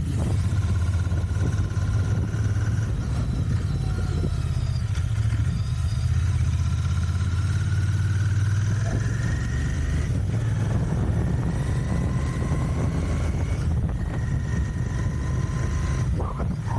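Royal Enfield Continental GT 650's parallel-twin engine running on its stock exhausts while riding under way. It holds a steady deep note, and a higher pitch climbs slowly and drops back about ten and fourteen seconds in.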